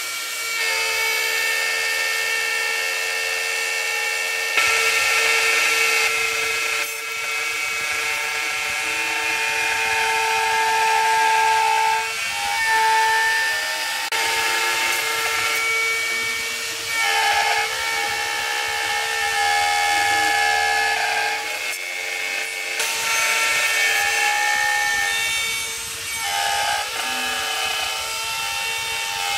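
CNC router spindle running with a steady whine while its end mill takes a roughing pass through a block of seasoned mahogany. The cutting noise swells and dips, and the tones shift a little, as the tool moves through the wood.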